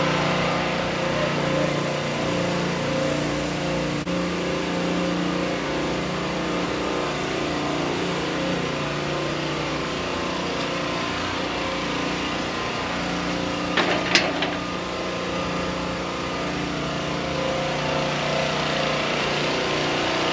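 An engine running steadily, a low hum under the general noise of city traffic. About fourteen seconds in comes one brief high squeak.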